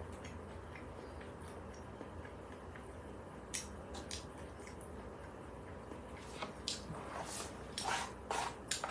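A spoon scraping and clicking against a plastic takeout bowl as food is scooped up. There are a few faint clicks near the middle, then a quicker run of scrapes and taps in the last few seconds.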